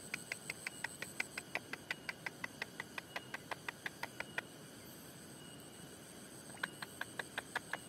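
A small animal calling with a rapid, very regular train of sharp clicks, about six a second. It stops for about two seconds in the middle and starts again near the end. A faint high steady whine runs through the first second or so.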